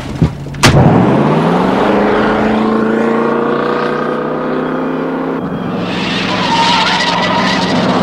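A click and a motorhome door slamming shut, then the motorhome's engine revving up as it pulls away and running steadily under load. Near the end it rushes past close by.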